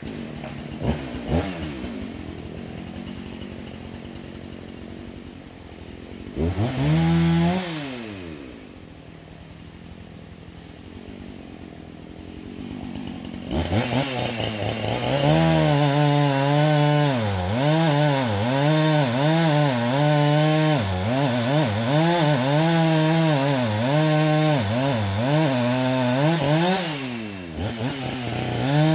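Chainsaw starting, idling with one brief rev, then running at full throttle from about halfway through, its pitch dipping and recovering again and again as it bogs down cutting into wood.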